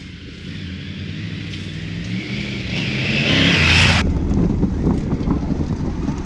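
Triumph Tiger 900 Rally Pro's three-cylinder engine growing louder as the bike rides toward the camera along a dirt trail. The sound cuts off suddenly about four seconds in. After that the engine runs steadily at low speed, heard from the rider's helmet-mounted camera.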